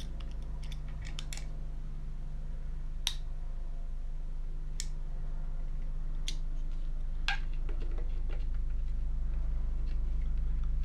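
Light, sharp clicks of small metal parts, a few close together near the start and then single ones a second or more apart, as a small hex driver works the set screw on an RC car motor's pinion gear. Under them runs a steady low hum.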